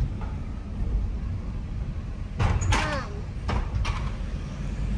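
Low rumble of a car heard from inside the cabin, with a short snatch of voice about two and a half seconds in.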